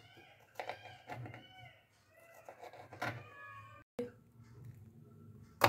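Knife cutting cucumber on a plastic chopping board in a few sharp taps, the loudest near the end, under high-pitched vocal sounds that rise and fall.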